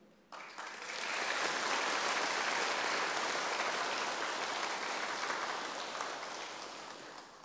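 Audience applauding: a steady round of clapping that swells within the first second and dies away gradually near the end.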